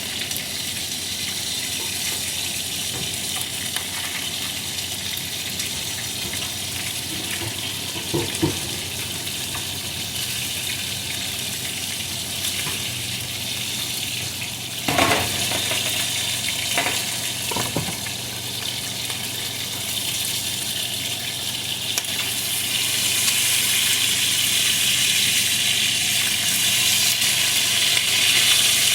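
Chicken drumsticks pan-frying in oil, a steady sizzle that grows louder about two-thirds of the way through, with a few knocks of utensils or the pan, the loudest about halfway in.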